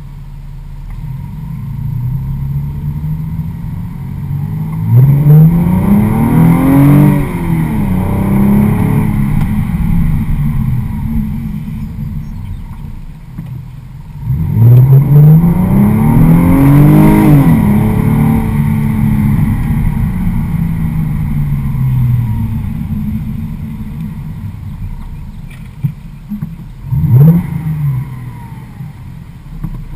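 A 2006 Audi A6 3.2 V6 with its mufflers removed, heard from inside the cabin. The engine pulls hard twice, its exhaust note climbing and then falling back, about five and fifteen seconds in. Between the pulls it cruises with a steady drone, and near the end there is a short blip of revs.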